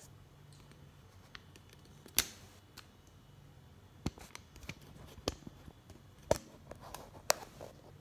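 Handling noise from a plastic suction-cup phone holder: a string of sharp, irregularly spaced plastic clicks and knocks, the loudest about two seconds in and again near six and seven seconds.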